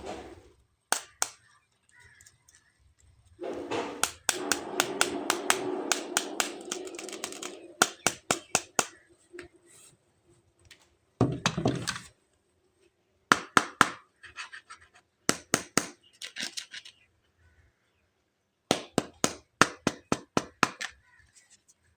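Plastic toys and packaging handled up close: many sharp clicks and taps in quick runs, a few seconds of dense rustling from about four seconds in, and a single loud thud near the middle.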